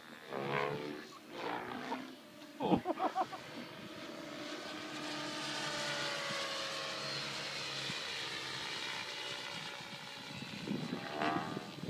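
Aircraft engine heard from a distance as a steady high whine, its pitch slowly falling as the plane flies past. In the first few seconds, short loud bursts from a nearby voice.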